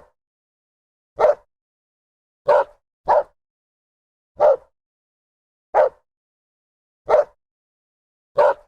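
A dog barking single, short barks, about one every second and a bit, with a quick double bark near the start and silence between each. The barks sound identical, like a repeated sound-effect sample.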